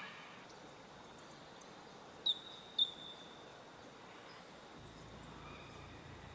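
Two short, high bird chirps about half a second apart, a little over two seconds in, over quiet bush ambience with a faint steady high whine.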